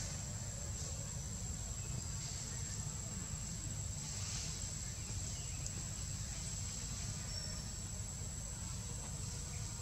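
Steady high-pitched insect trill over a low rumble.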